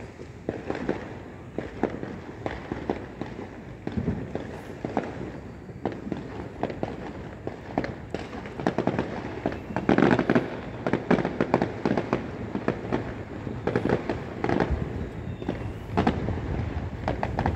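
Distant fireworks bursting in a dense, irregular run of bangs and crackles, thickest about ten seconds in and again near the end.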